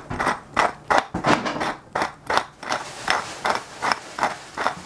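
Hand-held pepper mill grinding black peppercorns: a steady series of short crunching clicks, about three a second, as the mill is twisted.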